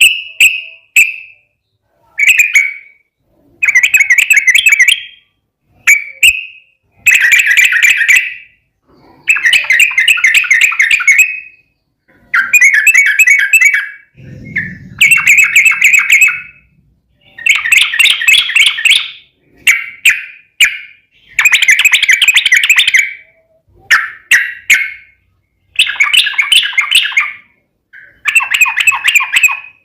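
Yellow-vented bulbul (trucukan) singing: loud, repeated phrases of rapid, bubbling notes, each about a second long, following one another every couple of seconds. A brief low rumble comes about halfway through.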